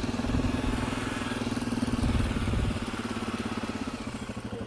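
Suzuki KingQuad 750 ATV's single-cylinder four-stroke engine running at low speed as the quad rolls along a dirt track. The steady, pulsing engine note grows a little quieter from about three seconds in.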